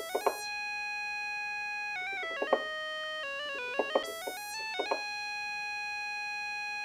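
Korg minilogue bass analog polyphonic synthesizer playing a few held chords, each chord opening with a short bright blip before settling into a steady tone, with the filter's EG Intensity turned up.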